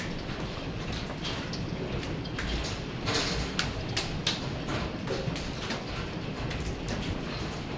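Hail falling on a deck and its patio furniture: a steady hiss of hailstones with many sharp clicks and knocks of single stones striking at irregular intervals.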